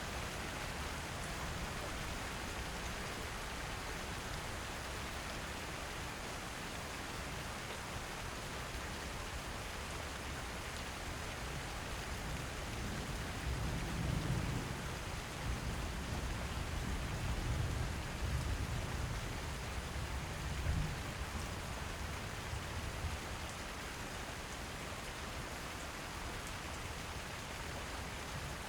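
Steady rain falling on a roof, an even hiss of drops. For several seconds past the middle a low rumble swells under the rain and then fades.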